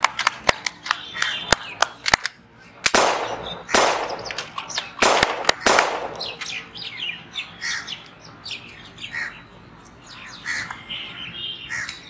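Birds chirping and calling repeatedly. In the first half come a string of sharp clicks and a few short bursts of hiss.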